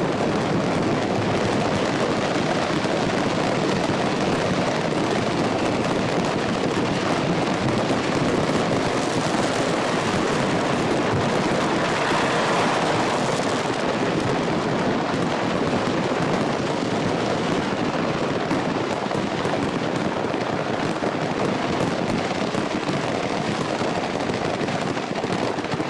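A burning load of fireworks crackling continuously: a dense, unbroken crackle of many small bangs and pops, a little brighter about twelve seconds in.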